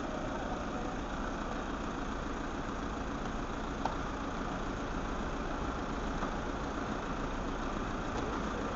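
Passenger van engine idling with a steady hum; a faint click about four seconds in.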